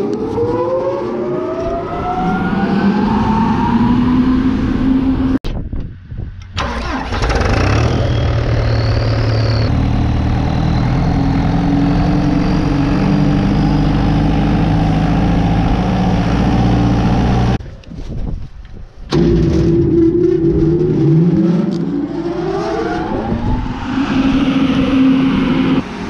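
A grain-bin aeration fan started at its push-button switch, the motor and fan winding up in a rising whine. After a cut, an engine runs steadily at about 1500 rpm, and near the end another rising spin-up is heard.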